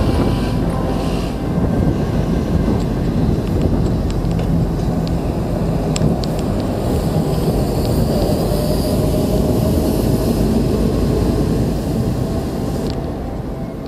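Steady rushing wind and road noise buffeting the microphone of a handheld camera on a moving electric unicycle. It is a dense low rumble that swells and eases, and a thin upper hiss drops away about a second before the end.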